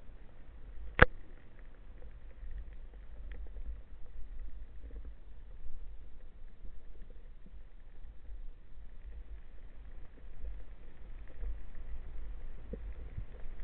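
Underwater ambience heard through a camera housing: a low rumble of water moving past, with faint scattered ticks and one sharp click about a second in.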